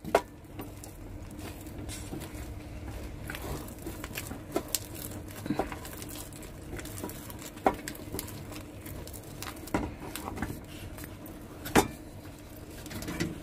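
Flat wooden stick stirring and mashing thick ragi (finger millet) dough in an aluminium pot, with soft squelching scrapes and about half a dozen sharp knocks of the stick against the pot. A steady low hum runs underneath.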